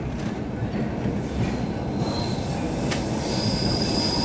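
Stockholm Metro C6 subway car running through a tunnel, heard from inside the car: a steady rumble of wheels on rail. About three seconds in there is a short click, and a high, steady wheel squeal sets in.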